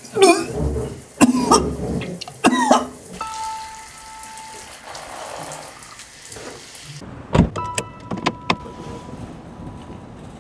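A man retching and gagging over a toilet for the first few seconds. Then comes the steady spray of shower water. About seven seconds in there is a loud thump and a couple of knocks over car-park noise.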